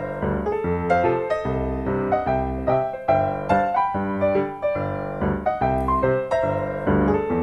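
Background music: a light piano tune, its notes struck in a steady bouncing rhythm.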